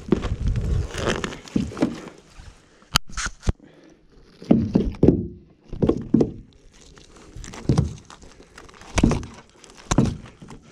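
Gill net being hauled and picked by hand over the side of a riveted metal boat: irregular knocks and thuds against the hull, with rustling of nylon mesh and waterproof clothing, and a sharp click about three seconds in.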